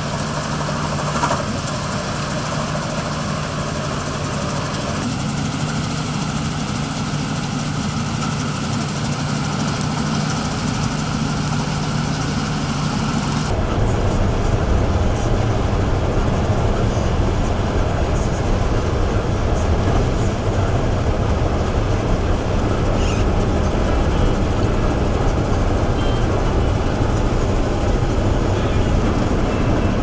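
Combine harvester running while it cuts barley: a steady drone of engine and threshing machinery. A little before halfway it changes abruptly to a deeper, slightly louder rumble.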